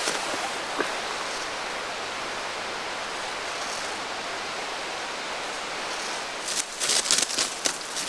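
A steady rushing hiss of outdoor background, then, about six and a half seconds in, irregular footsteps crunching and rustling through dry leaf litter on the forest floor, louder than the hiss.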